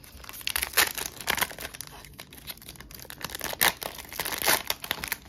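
Foil booster-pack wrappers and Pokémon trading cards being handled, crinkling and rustling in short irregular bursts with a few louder crinkles.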